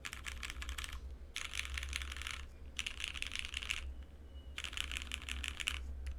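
Mechanical keyboard being typed on in four quick runs of keystrokes with short pauses between. The board is an Artifact 60.1 prototype with FR4 plate and GMK keycaps, fitted with tactile Cherry MX Brown Hyperglide switches that are lubed and filmed and carry two-stage springs.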